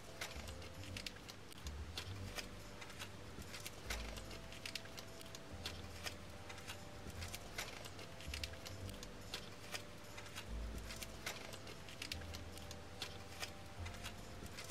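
Small clear plastic zip-lock bags of beads crinkling and rustling as they are handled, with the beads clicking and rattling against each other inside. A few soft low thumps as bags are set down on the table.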